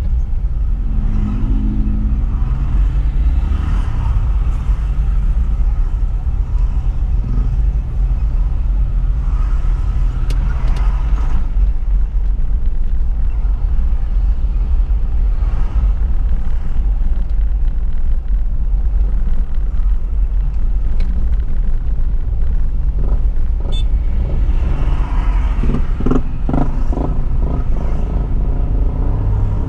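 Steady low road rumble of a car driving along a highway, heard from inside the car's cabin: tyre and engine noise, with a busier stretch of other sound near the end.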